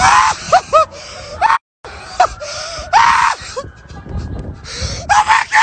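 A person screaming in repeated short, high shrieks and gasps. The sound drops out completely for a moment about one and a half seconds in, and another burst of shrieks comes near the end.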